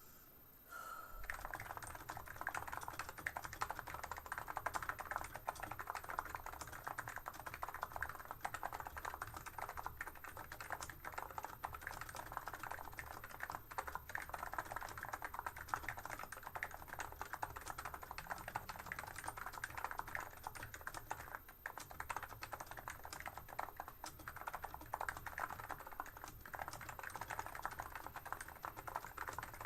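Fast, continuous typing on a Plum 87 keyboard with 35 g electro-capacitive (Topre-style) switches. A dense, unbroken run of keystrokes starts about a second in.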